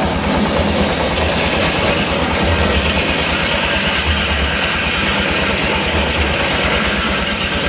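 An engine running steadily with a low, even pulsing beat, joined about a second and a half in by a higher hissing sound.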